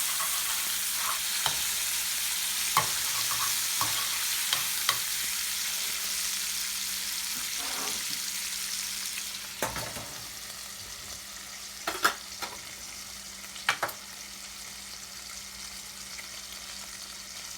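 Food sizzling in a greased frying pan, with short sharp clicks of a utensil against the pan several times. The sizzle drops quieter about ten seconds in.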